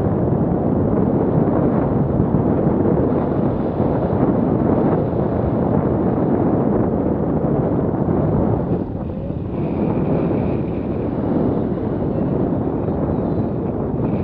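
Wind rushing over the camera microphone of a tandem paraglider in flight: a steady, heavy rumble that dips briefly about nine seconds in.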